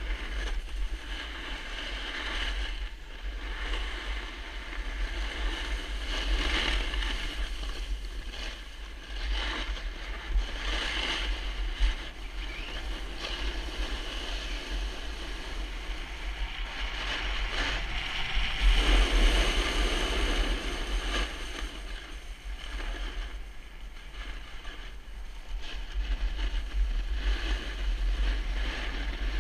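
Wind buffeting a GoPro action camera's microphone while skiing fast down a groomed snow slope, with the hiss and scrape of edges sliding over packed snow, swelling and fading with the turns. It grows louder for a couple of seconds a little past the middle.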